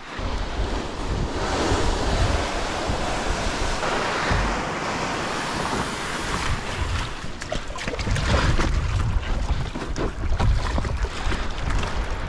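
Strong wind buffeting the microphone with a low rumble, over waves washing on the water, with a few short splashy ticks in the second half.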